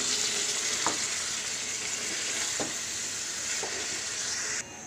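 Chicken pieces sizzling in hot oil and spice paste in a pan, a steady loud sizzle with a few light spatula knocks as the meat is stirred. The sizzle cuts off suddenly near the end.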